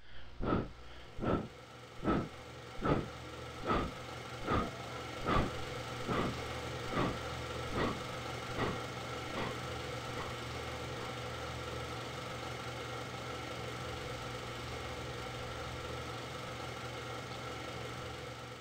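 A steady droning hum with a regular knock a little more than once a second. The knocks grow fainter and stop about ten seconds in, while the hum carries on and fades out at the end.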